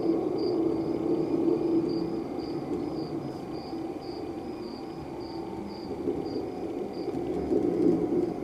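Crickets chirping, a short high chirp repeating about two to three times a second and fading out near the end, over a steady low hum.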